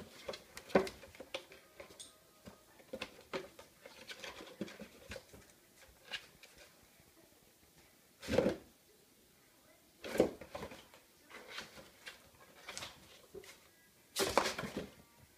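A cat scrabbling about inside an empty cardboard drinks carton: scattered light taps and scratches on the cardboard, with three louder rustling scrapes about eight, ten and fourteen seconds in.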